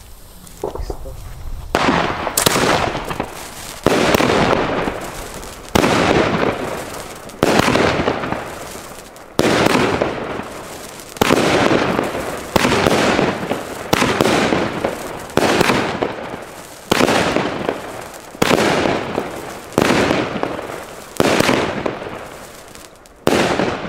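Argento Veronica firework battery firing shot after shot, about fourteen times at roughly one-and-a-half-second intervals, starting about two seconds in. Each sharp launch is followed by a crackling tail that fades before the next shot.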